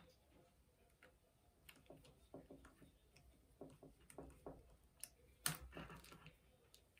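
Faint small clicks and ticks of a precision screwdriver working tiny screws into the thin metal plate on the back of an iPhone 6 Plus display, with one louder click about five and a half seconds in.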